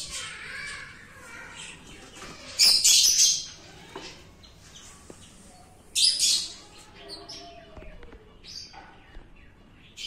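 Caged lovebirds giving shrill, harsh calls in loud bursts about two and a half seconds in and again at about six seconds, with fainter chirps between.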